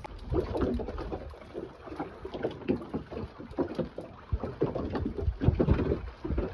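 Choppy water slapping against a small open fishing boat's hull, with wind on the microphone and irregular knocks and thumps.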